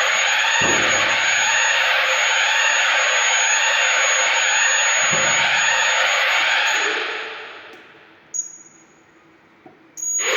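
Fire alarm sounder under test, giving a loud wavering tone that sweeps up and down a little faster than once a second. It dies away about seven seconds in, a click follows, and it sounds again just before the end.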